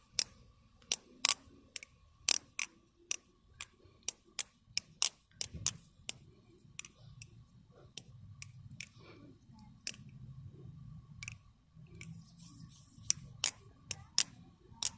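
Replica Raven balisong clacking as it is flipped through fall flops: sharp, irregular clicks of the handles swinging open and shut around the pivots, sometimes in quick runs of several.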